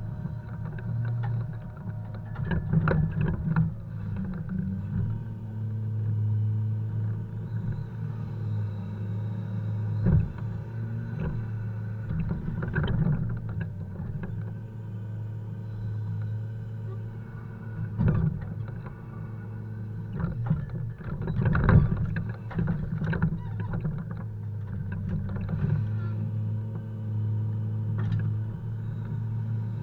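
Volvo FH 520 logging truck's six-cylinder diesel running steadily while poplar logs are unloaded, with repeated heavy knocks and clattering as logs strike each other and the truck.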